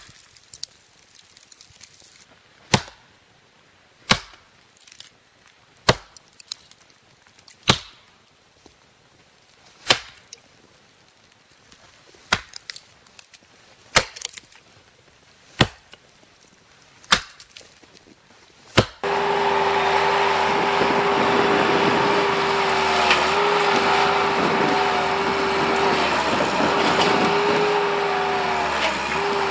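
Axe chopping into wood, about eleven sharp blows spaced a second and a half to two seconds apart. About two-thirds through it cuts abruptly to a skid loader's engine running steadily and loudly, with a held drone that dips now and then.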